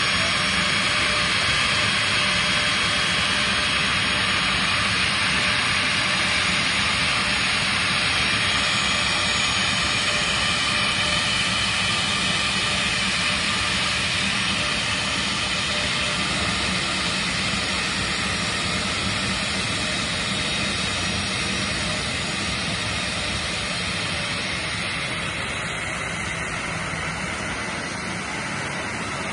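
Boeing 737 jet engines running at idle as the airliner taxis in and stops at the gate: a steady rush with a high whine over it, easing slightly toward the end.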